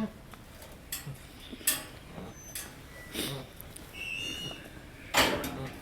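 Quiet pen sounds from a goat in labour: scattered short rustles and knocks, a brief high chirp about four seconds in, and one short, loud breathy burst a little after five seconds.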